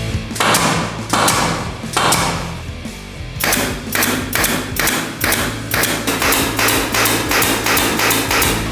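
Pneumatic air nail gun firing: four separate sharp shots, then a rapid, even string of shots at about three a second. Background music plays underneath.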